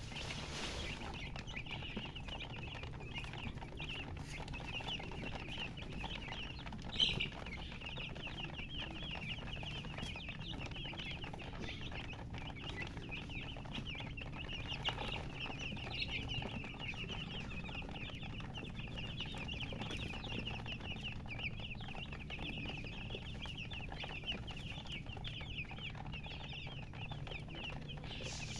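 A group of baby chicks peeping continuously in a dense, overlapping chorus of short high chirps, with one brief louder sound about seven seconds in. The uploader puts the chirping down to the chicks being thirsty for water.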